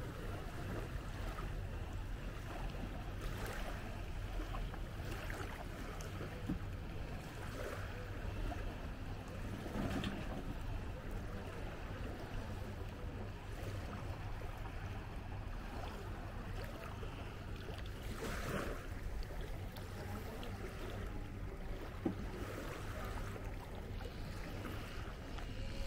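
Seaside ambience on a sandy beach: small waves washing at the shoreline over a steady low rumble.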